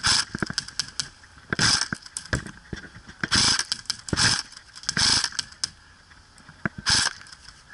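Airsoft electric guns firing about five short bursts a second or so apart, with scattered sharp clicks between them.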